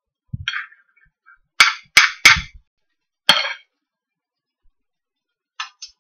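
A metal serving utensil knocking against a dinner plate while food is served. Four sharp clinks come between about one and a half and three and a half seconds in, with a softer clatter before them and two light clicks near the end.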